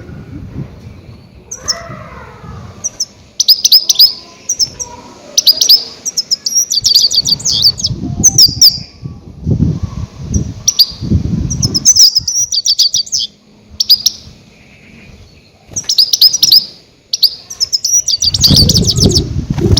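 Goldfinch giving loud, rapid twittering flight calls in repeated bursts of quick high notes, the kind of call used as a trapping lure. Low muffled thuds come in between several times.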